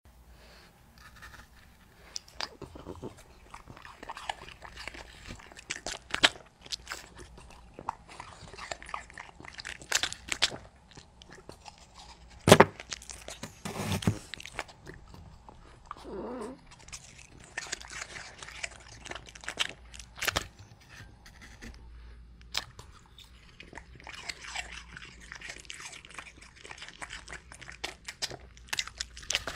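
French bulldog biting and chewing raw apple chunks, crisp wet crunches coming irregularly, with the loudest bite about halfway through.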